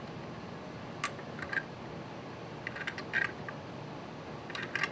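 Sparse small metal clicks and ticks of a wrench tightening the mounting nut of a new footswitch in a wah pedal, a few at a time over a steady low hiss.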